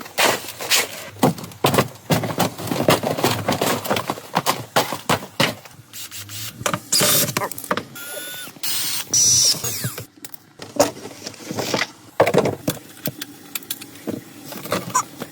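Workshop clatter from an oil and filter change: repeated knocks and clicks of tools and parts being handled, with two short hissing stretches a little past halfway.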